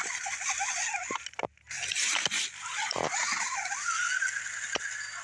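RC rock crawler's electric motor and gear train whining as it is driven over rocks, the pitch wavering and rising with the throttle, with scattered clicks and knocks. The sound cuts out briefly about a second and a half in.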